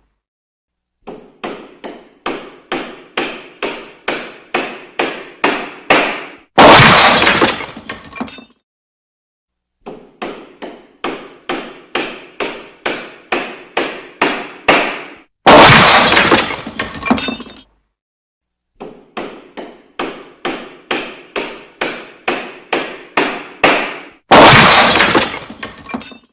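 Renovation sound effect, played three times: a quick run of hammer blows, about two a second and growing louder, ending in a loud crash of breaking glass.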